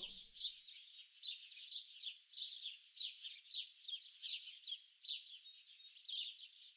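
Songbirds chirping: a continuous run of short, high, quick downward-sliding chirps, several a second.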